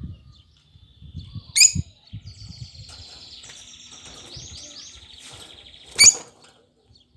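Lovebird calling: two sharp, shrill chirps about four seconds apart, with a long high twittering trill between them. Soft low thumps sound underneath.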